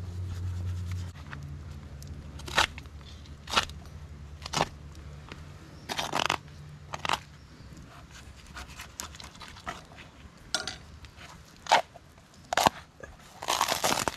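Knife scraping and cutting between a frozen armadillo's bony banded shell and its meat, in short scrapes and crunches at irregular intervals as the shell is pried away.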